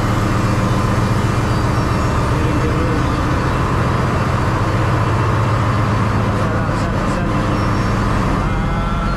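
Ship's machinery running below decks: a loud, steady drone with a deep hum underneath.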